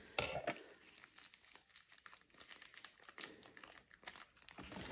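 Faint crinkling of a small plastic bag of diamond painting drills being handled, with scattered light clicks and a sharper crackle just after the start.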